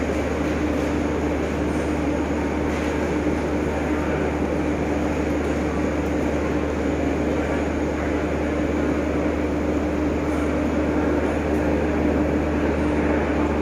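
Steady mechanical hum of a passenger train standing at a station platform, with one constant low tone.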